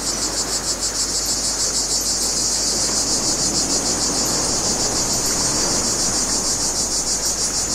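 Insect chorus of shrill chirping, pulsing evenly several times a second without a break.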